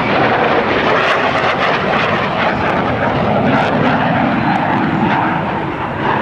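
Loud, steady jet noise of a US Navy F/A-18 Hornet's twin General Electric F404 turbofan engines as the jet flies past.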